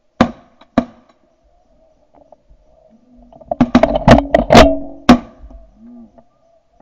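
Shotgun shots at flying geese: two shots about half a second apart, then a quick volley of several shots over about a second and a half.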